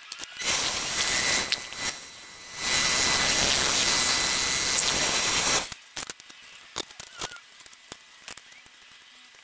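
Wood lathe spinning a root burl while a long drill bit held by hand in a chuck bores into it: a loud hissing cutting noise that dips briefly twice and stops at about five and a half seconds. Light clicks and knocks follow as the stopped piece is handled.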